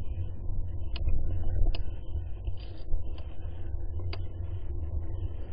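Steady low rumble of wind and road noise on a microphone carried on a moving bike, broken by three sharp clicks or rattles.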